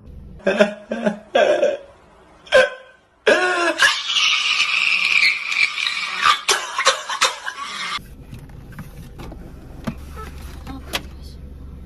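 A few short vocal sounds and a knock, then about three seconds in a man's loud, distorted wailing that lasts some five seconds. It is followed by softer rustling and light knocks of things being moved about.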